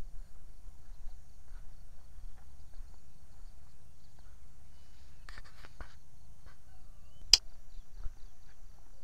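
Footsteps and handling rumble from a camera carried while walking through a field, with a few rustles and clicks about five seconds in and a single sharp click a little after seven seconds.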